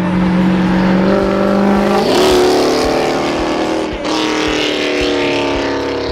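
A car engine and exhaust accelerating hard, the engine note climbing about two seconds in. The sound breaks off sharply about four seconds in, and the engine note then slowly falls as the car runs on.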